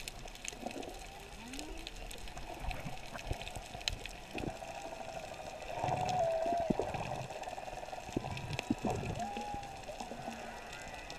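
Underwater ambience: a steady muffled hiss peppered with sharp clicks, with a few drawn-out tones that bend up and down, loudest around the middle and again about nine seconds in.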